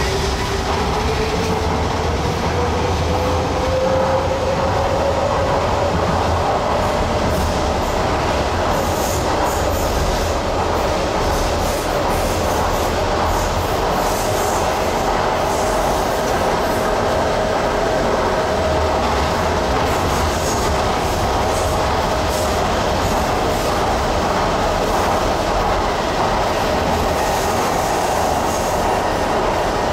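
Docklands Light Railway train running, its motor whine rising in pitch over the first few seconds as the train gathers speed and then holding steady, over a constant rumble of wheels on rail with scattered short clicks.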